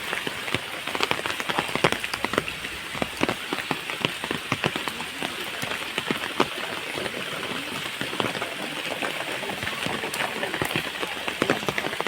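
Rain falling steadily, with many sharp drops pattering and dripping onto hard surfaces close by.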